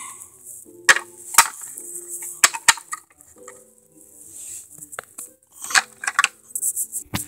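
Small plastic toy figurines being handled and knocked against a plastic playhouse, making a series of sharp clicks and taps, with a quick cluster of them near the end. Faint music plays underneath.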